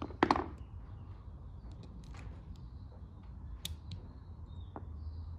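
Small clicks and taps of a lawn mower carburetor and its small parts being handled and fitted by hand, with a couple of louder clicks just after the start, over a faint low hum.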